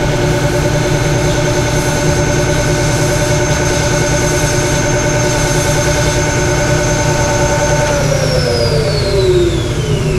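Bench grinder running steadily while the edge of a VW clutch cross shaft is held against its wheel to dress it. About eight seconds in the grinder is switched off and its pitch falls as the wheel spins down.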